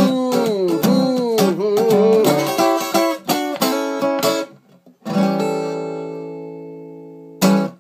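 Strummed archtop acoustic guitar closing out a blues song, with a man's wordless sung line over it for the first couple of seconds. After a brief gap about five seconds in, a final chord rings and slowly fades, and a last short strum is cut off at the end.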